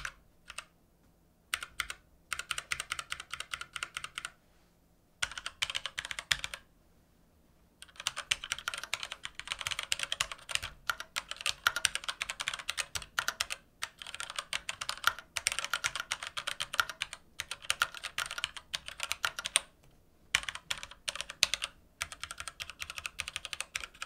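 Typing on an ErgoDox EZ split keyboard fitted with light, linear Gateron White switches: fast runs of keystrokes broken by a few short pauses.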